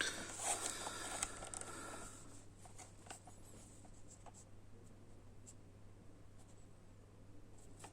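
Cardboard packaging being handled and opened: rustling and scraping for about two seconds, then a few light clicks and taps.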